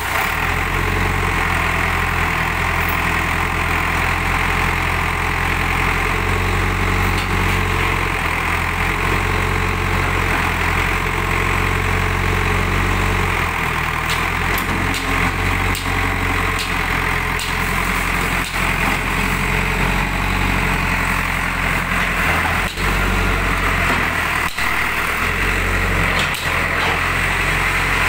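JCB 3D backhoe loader's diesel engine running steadily while the backhoe arm is worked, its note shifting about halfway through. Several sharp knocks come in the second half.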